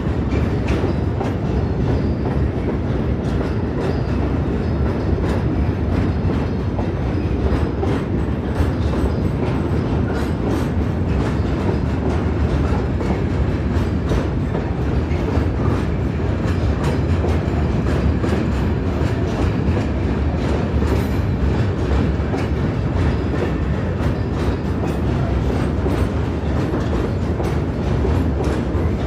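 A train running by on the track: a steady rumble with a stream of clicks from the wheels over the rail joints.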